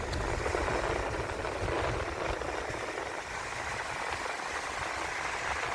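Wind buffeting the microphone as a low, uneven rumble, over a steady wash of surf.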